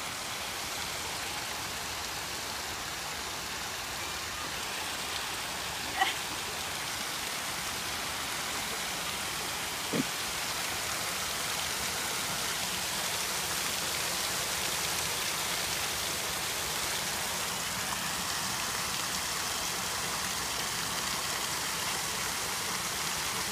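Small artificial waterfall splashing steadily into a rock pool, with two short clicks about six and ten seconds in.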